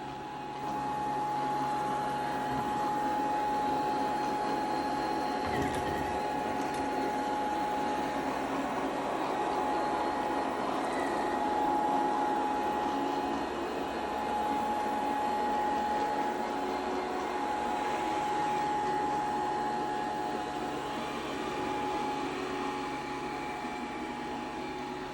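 LG CordZero R5 robot vacuum running: a steady, loud suction noise with a high whine held on one pitch, likened to ten Dyson Supersonic hair dryers running at once.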